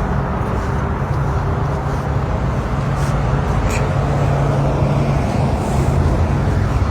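Steady road and engine noise of a car being driven, with a constant low hum.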